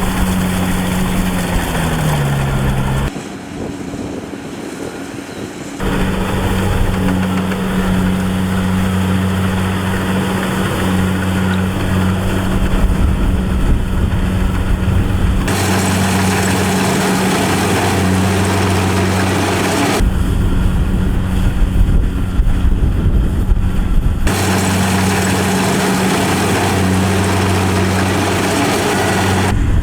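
Engine of a rice harvesting machine running steadily at a constant pitch, in several cut-together shots; the engine note drops in pitch briefly near the start, and the sound changes abruptly at each cut.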